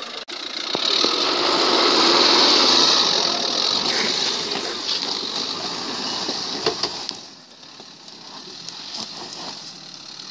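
Dacia Duster 4x4 crawling through a rutted dirt ditch: its engine and tyres on loose dirt are heard under a loud, even rushing noise, which eases off about seven seconds in after a few sharp clicks.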